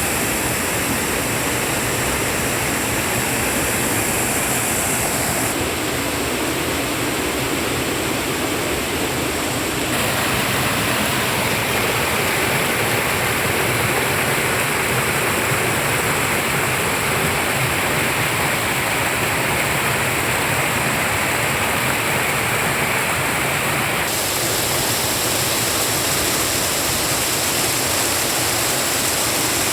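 Swift, clear river water rushing in a steady, loud wash. Its tone changes abruptly a few times.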